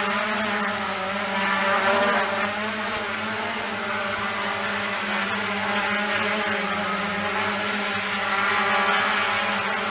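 Small quadcopter's electric motors and propellers buzzing steadily as it hovers, the pitch wavering slightly, a little louder about two seconds in and again near the end.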